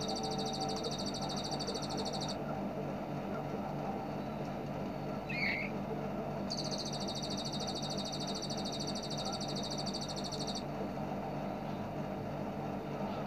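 Bar-winged prinia (ciblek) giving its rapid, machine-gun-like 'ngebren' trill in two long runs of about four seconds each, the first ending about two seconds in, with a single short chirp between them, over a steady low hum.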